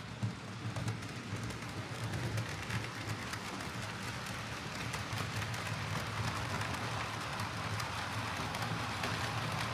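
Oxford Rail OO gauge Dean Goods model locomotive running on track: a steady motor hum under a crackly rattle of wheels and mechanism, slowly building in level.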